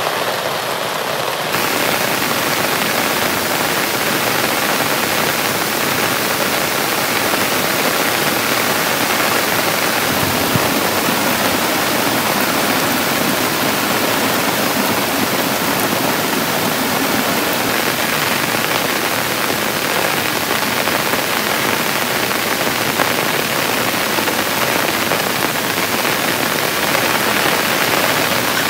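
Heavy rain pouring steadily: a dense, even hiss that never lets up.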